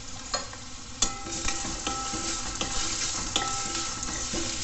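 Chopped onions sizzling in hot oil in a metal kadai while a metal spatula stirs them, clicking and scraping against the pan from about a second in.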